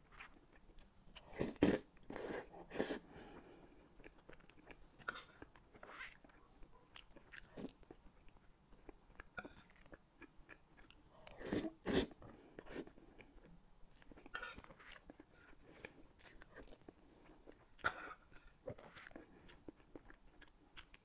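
Close-miked wet chewing of a chocolate cake covered in milk cream and chewy tapioca pearls, with irregular soft mouth clicks. It gets louder about a second and a half in and again around twelve seconds.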